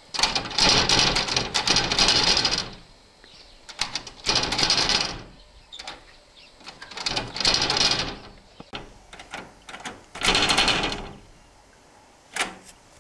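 A baboon jiggling and yanking the metal handle of a wood-framed glass door, the handle and door rattling hard in four bursts of a second or two each, with short pauses between and a brief final rattle near the end.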